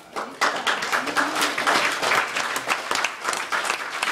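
A roomful of seated guests applauding, breaking out sharply about half a second in and keeping up as many overlapping claps.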